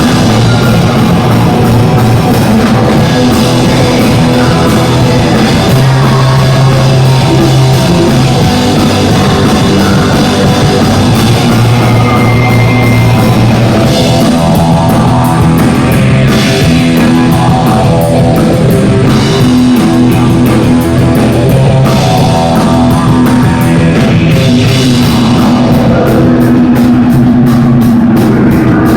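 A live band playing loud rock music, with drum kit and pitched instruments sounding together throughout.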